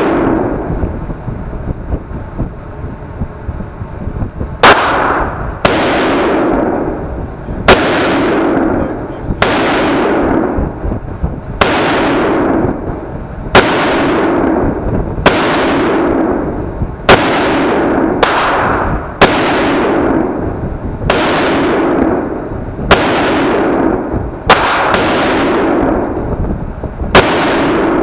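Rifle shots at an indoor shooting range: after a few quiet seconds, a steady string of about fifteen shots roughly one to two seconds apart, a couple of them in quick pairs, each followed by a long echo off the range walls.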